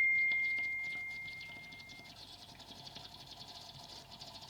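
A single clear metallic ring, struck just before, fading away over about two seconds, followed by a faint steady hiss.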